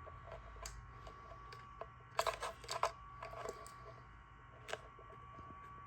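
Light clicks and rattles of a guitar pickup and its wires being handled and fed through the cavity hole of a Telecaster body, in a cluster about two seconds in and a single click near the end, over a faint steady hum.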